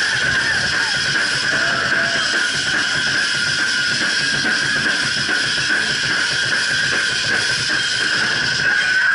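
A band playing loud music with a drum kit and guitar, heard as a dense, steady wash of sound.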